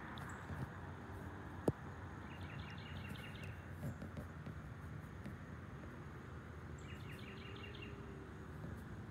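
Faint outdoor street ambience: a low steady rumble of distant traffic, with a bird giving a quick run of high chirps twice, and one sharp click about two seconds in.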